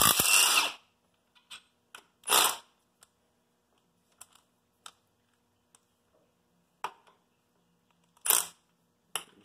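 Milwaukee M18 cordless impact wrench run in three short bursts, spinning out motor-mount bracket bolts, with small metallic clicks of bolts and socket being handled between the bursts.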